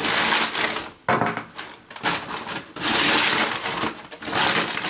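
Packaging being handled and crinkled, a crackling rustle in about four bursts of roughly a second each.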